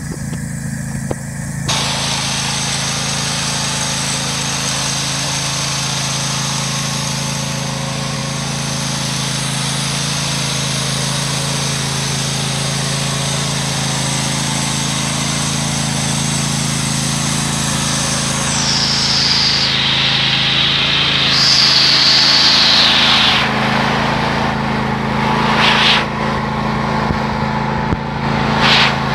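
Briggs & Stratton engine of a Husqvarna riding lawn mower running steadily at a constant speed. A broad hiss over the engine's hum grows louder about two seconds in and wavers in the last ten seconds.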